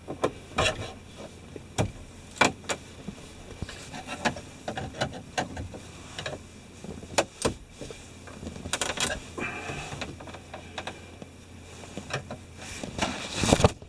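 Scattered clicks, knocks and scraping of plastic dash trim and the 4WD selector switch being worked loose from the truck's dash by hand.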